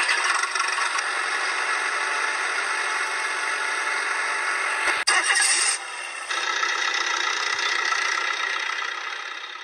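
Added truck-engine sound effect running steadily with a high whine. It changes abruptly about five seconds in and fades away near the end.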